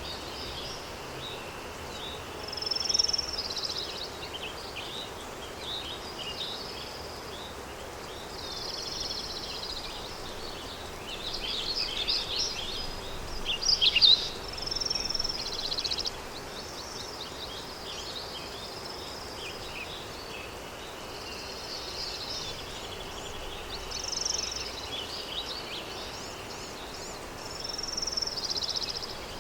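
Countryside daytime ambience: many small birds chirping and trilling in short bursts over a steady background hiss of wind, with the busiest, loudest calling about twelve to fourteen seconds in.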